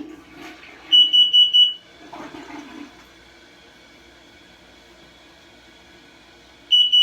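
Carbon monoxide alarm sounding its alarm pattern: four quick, high-pitched beeps, a pause of about five seconds, then four more beeps near the end. It is warning that it has detected carbon monoxide.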